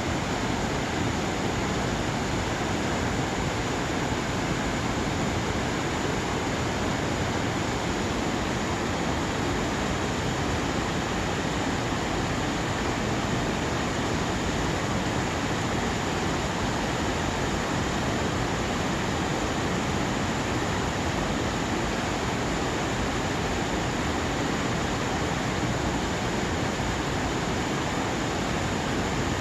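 Mountain stream water rushing steadily, an even, unchanging noise.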